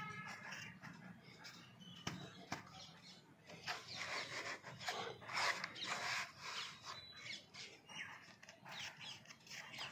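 Fingers rubbing and pressing a loose soil and cocopeat mix in a plastic pot: a dry rustling scrape in irregular strokes, busiest in the middle.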